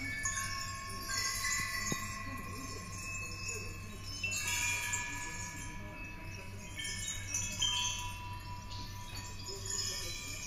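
Chime-like tinkling from a mechanical kaleidoscope sound sculpture: many small pieces struck in turn, each ringing on in overlapping high tones. A steady low hum lies beneath, and there is one sharp click about two seconds in.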